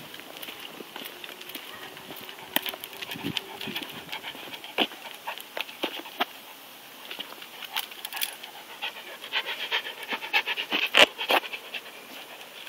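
Fila Brasileiro dog panting as it walks, a quick run of breaths that grows stronger near the end, with scattered sharp clicks and taps throughout; the loudest click comes about eleven seconds in.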